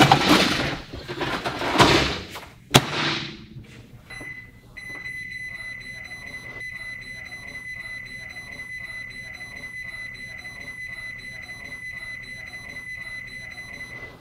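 A pan slid into a countertop microwave with a clatter, then the door shut with a sharp click about three seconds in. About four seconds in the microwave starts running: a steady high-pitched tone over a low hum.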